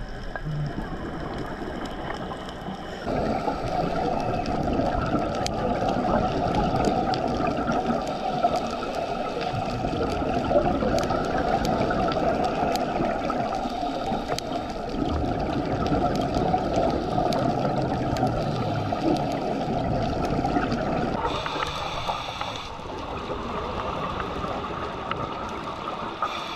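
Underwater rushing of water and bubbles on a dive camera's microphone, in a strong current. It rises a few seconds in, holds steady, and eases off near the end.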